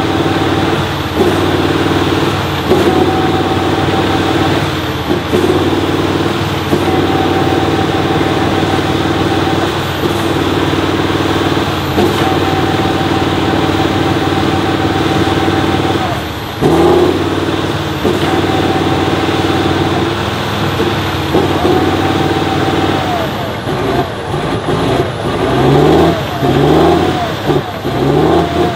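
Off-road trial truck's engine working hard under load, holding a steady note that breaks off briefly every few seconds. Near the end it is revved up repeatedly in short rising bursts.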